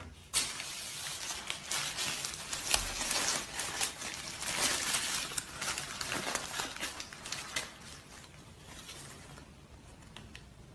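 Paper burger wrapper crinkling and rustling as it is pulled open by hand, a dense crackle starting just after the beginning and lasting about seven seconds, then thinning to a few faint crinkles.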